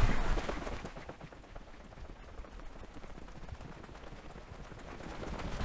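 Faint footsteps walking on a hard floor, as irregular soft taps over quiet room tone.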